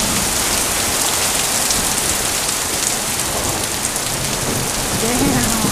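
Heavy rain mixed with big hail pouring down, a steady hiss peppered with fine ticks of stones striking surfaces. A short shout comes just before the end.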